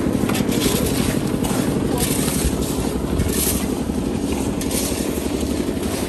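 An engine running steadily at constant speed, with a fast, even pulse.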